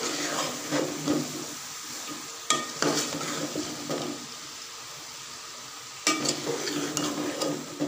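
Cauliflower florets and potatoes frying in masala in a metal pot, with a spoon stirring and scraping against the pot. The sizzle is steady underneath, and the scraping and knocking come in three spells: at the start, about two and a half seconds in, and again at about six seconds.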